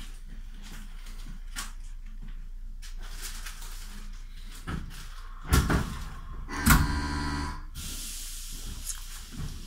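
Passenger train doors closing at a station stop. Two thuds come a little past halfway, then a warning tone of about a second, then a hiss of air, heard from inside the carriage.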